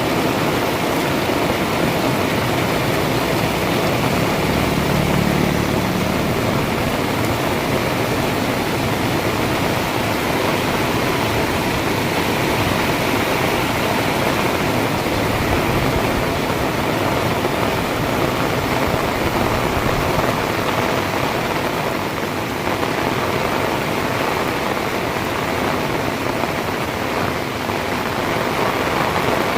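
Heavy rain pouring down in a steady, even downpour, with a brief low hum about four seconds in.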